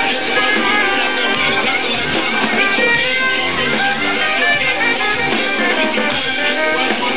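Live electronic music played loud over a concert PA, with dense sustained melodic lines and no break.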